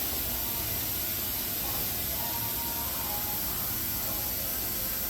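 Compressed air hissing steadily into a tire as it is inflated on the tire machine.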